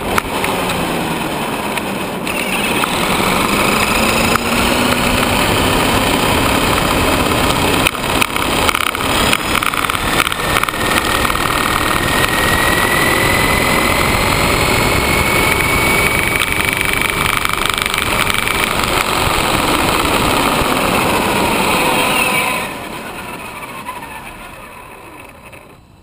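Traxxas Summit RC monster truck driving on asphalt, heard from a camera riding on the truck: a steady rush of tyre and wind noise with an electric motor whine that rises and falls in pitch with speed. About three-quarters of the way through, the noise drops sharply and then dies away.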